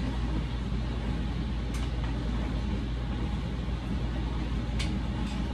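Steady low hum of kitchen appliances running, a microwave oven heating butter and a dishwasher, with a few faint short high clicks.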